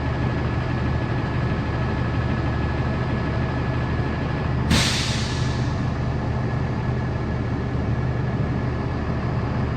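A diesel or LPG engine on a piece of heavy equipment idling steadily. About five seconds in, a sharp hiss of released air cuts in and fades away within about a second.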